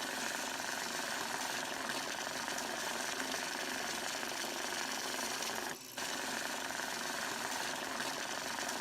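Electric banknote counter riffling through a stack of bills, a continuous rapid mechanical rattle with a brief break about six seconds in.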